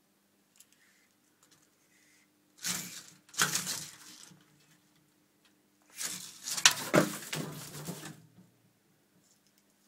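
Frilled dragon hissing with its mouth gaped open in a defensive display: two rough, breathy hisses, one about two and a half seconds in and a longer, louder one about six seconds in.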